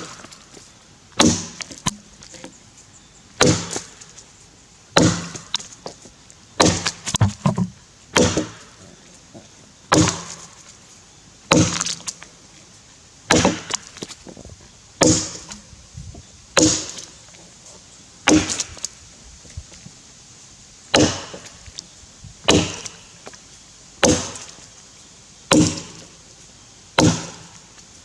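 Tassie pattern felling axe chopping into a Grey Gum log while bucking it, a steady rhythm of sharp wooden strikes about every one and a half seconds, some followed by a small crack of wood chips splitting away.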